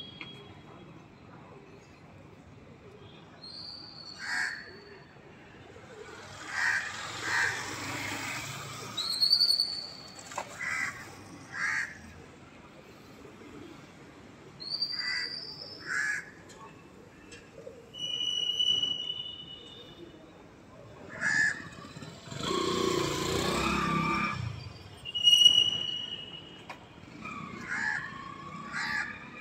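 Birds calling at intervals: harsh crow caws and short high chirps and whistles. Twice a longer rushing noise swells and fades over a few seconds.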